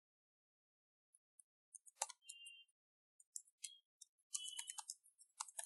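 Faint computer keyboard typing: irregular light key clicks starting a little under two seconds in.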